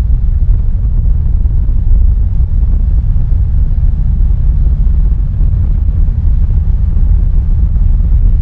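Honda CB1100RS motorcycle ridden at speed, heard from an onboard camera: steady, loud wind buffeting on the microphone over the low, even note of the bike's inline-four engine.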